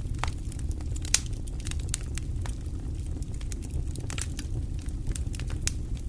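Wood fire burning in a fireplace: irregular sharp crackles and pops over a steady low rumble of flames, with a louder pop about a second in.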